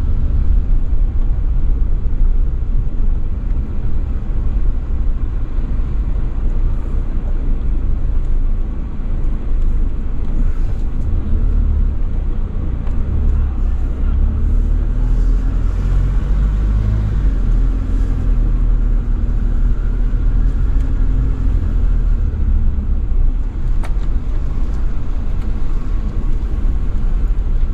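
Car driving on an unpaved dirt road, heard from inside the cabin: a steady low rumble of engine and tyres.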